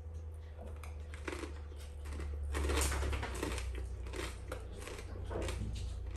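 Crunching and chewing of a bite of air-fried crispy rice: irregular crackly crunches, loudest about two and a half to three seconds in.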